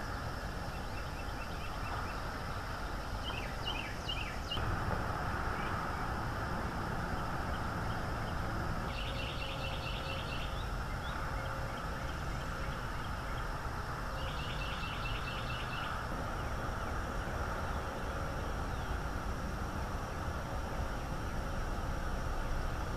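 Outdoor ambience from a treetop nest camera: a steady low rumble with small birds calling over it. Clusters of short high chirps come in the first few seconds, and two rapid trills of about two seconds each come around ten and fifteen seconds in.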